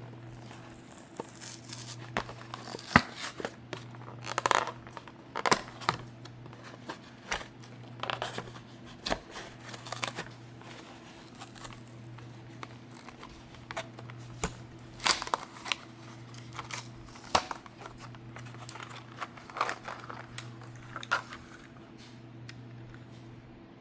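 Plastic blister and cardboard backing card of a Matchbox diecast toy being peeled, torn and crinkled open by hand, in irregular sharp crackles and clicks. A steady low hum runs underneath.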